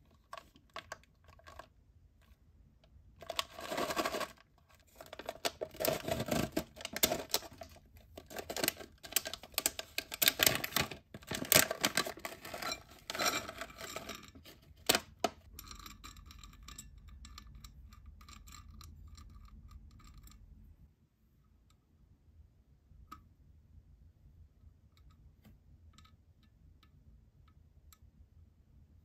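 Plastic snack pouch crinkling and tearing open, full of sharp crackles, then small chocolate puzzle pieces clicking onto a glass plate. After that only a few faint, scattered clicks as the pieces are pushed together on the glass.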